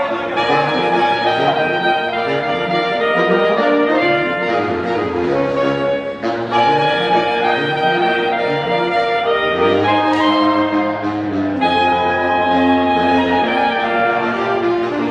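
Saxophone quartet of soprano, alto, tenor and baritone saxophones playing an ensemble arrangement, several voices in harmony over a moving bass part.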